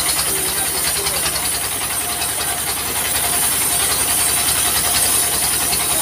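Single-cylinder diesel engine running steadily with a fast even knock, driving a bandsaw sawmill as a log is fed through the blade; a steady hiss and a constant tone ride over the engine.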